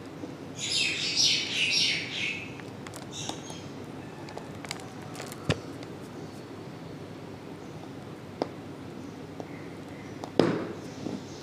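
A dry chunk of multani mitti (Fuller's earth clay) being bitten and crunched in the mouth: a crisp, crackly crunch for about two seconds just after the start, then scattered small clicks of chewing, and another louder crunch near the end.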